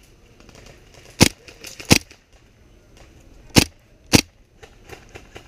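Four sharp single shots from an airsoft gun, in two pairs: two shots about 0.7 s apart, then two more about 0.55 s apart about a second and a half later.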